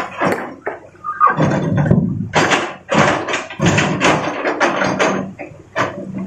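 Large rocks clattering and knocking one after another as an excavator bucket drops them into a steel dump truck bed, a quick irregular run of impacts over a few seconds.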